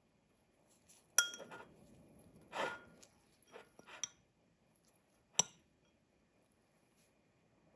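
Metal spoon clinking and scraping against a glass bowl while scooping chopped dill: a sharp clink about a second in, a longer scrape, a few light ticks, then another sharp clink at about five and a half seconds.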